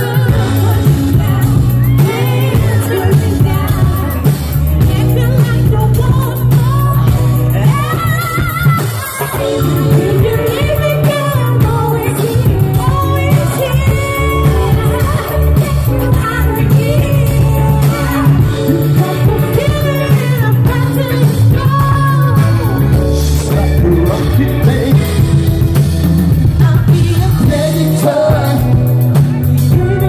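Live band playing with a male singer's voice over electric guitar and drums, with heavy bass. The vocal slides and holds notes throughout.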